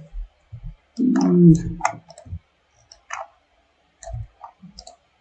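Scattered computer mouse and keyboard clicks while copying and pasting components, with a short low hum about a second in.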